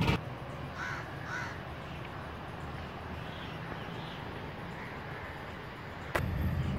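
Crows cawing in the trees: two short caws about a second in and two more a couple of seconds later, over a steady low background, with a sharp click near the end.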